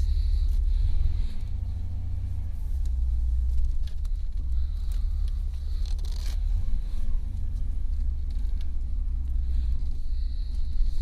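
Ford Granada 2.8's Cologne V6 engine and road noise heard inside the cabin while driving: a steady low rumble that swells and eases a little.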